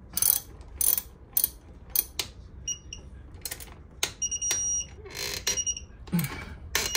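Wrench clicks as battery cable lug nuts are tightened onto a busbar, followed by a digital torque wrench beeping several times, with a longer beep as it reaches its set torque.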